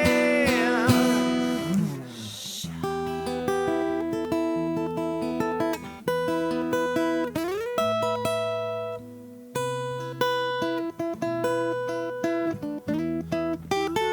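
Guitar in a live rock band playing. A held note with wavering pitch fades about two seconds in. Then comes a slow picked arpeggio of single notes over sustained bass notes.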